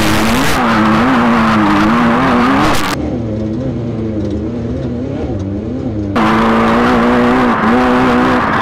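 Off-road race car's engine running hard at high revs, its pitch rising and dipping repeatedly with the throttle over rough dirt, over a steady rush of tyre and chassis noise. The sound changes abruptly about three seconds in and again about six seconds in, switching between the cockpit and the front wheel.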